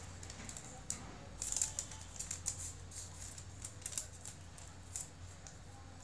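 Sheet of craft paper rustling and crackling as it is folded and creased by hand, in short scratchy bursts that are busiest about one and a half seconds in.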